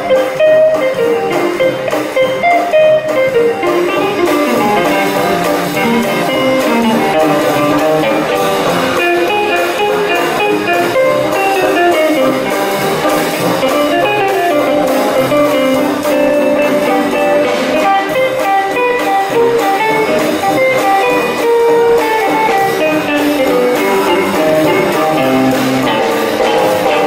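Live swing band playing an old-style jazz tune, guitar to the fore over upright bass, banjo and drums.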